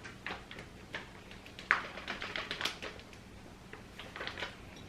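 Scattered light clicks and taps of a measuring cup and kitchen utensils as flour is measured out, with one sharper click a little under two seconds in.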